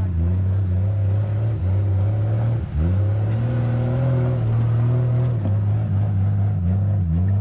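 Off-road vehicle engine running and revving, its pitch wavering up and down, with two brief drops and recoveries in revs: one a little over a third of the way in and one near the end.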